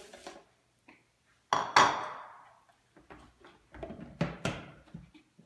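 A hard knock of a bowl on a hard surface about a second and a half in, ringing and fading over about a second, then a run of lighter knocks and clicks as the lid is fitted onto a Vitamix blender jar full of oats.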